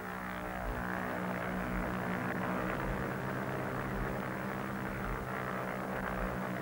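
Propeller airplane engines droning steadily.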